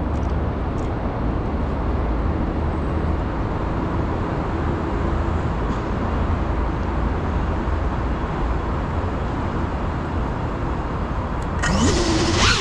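Steady low rumble of road traffic. Near the end a louder, wavering pitched sound cuts in suddenly.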